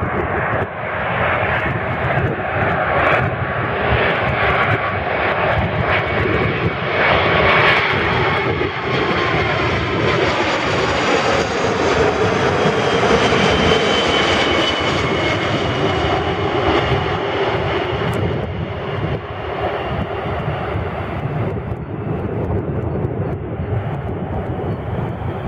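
A British Airways Boeing 747-400's four Rolls-Royce RB211 turbofan engines on landing approach: a steady jet rumble that grows loudest as the airliner passes close by about halfway through. Whining tones in it slide down in pitch as it passes, and the sound eases slightly as it goes on over the runway.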